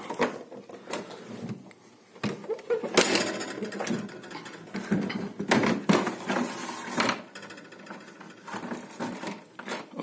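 Refrigerator's plastic drip tray knocking, clicking and scraping against the wire shelves as it is fitted into place by hand, in irregular knocks with a few louder scrapes.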